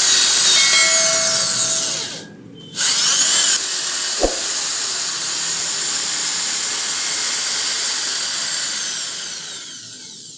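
Electric hand drill motor running at full speed with a high whine, switched off briefly about two seconds in and started again, spinning up each time. It runs steadily, then slows down and fades out near the end, with one short knock about four seconds in.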